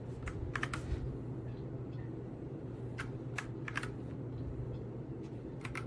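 Keystrokes on a Redragon K689 gasket-mounted mechanical keyboard with linear switches: a handful of scattered clacks, some in quick pairs, over a steady low hum.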